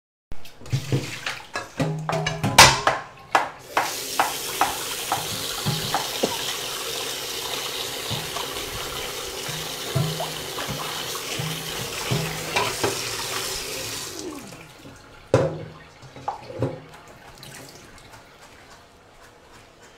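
Kitchen tap running into a sink for about ten seconds, then shut off abruptly, with knocks and clatter of kitchenware before, during and after.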